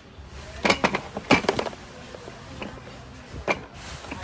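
Clatter of hard objects being handled: a cluster of sharp clicks and knocks about a second in, and one more sharp click near the end.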